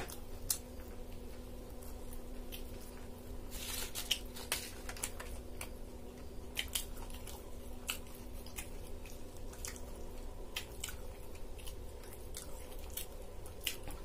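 Chewing and small mouth clicks from someone eating the last bits of an egg roll, scattered irregularly, with a denser patch about four seconds in, over a steady low hum.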